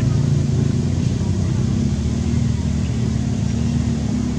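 A steady low engine hum, like a motor running nearby, holding an even pitch.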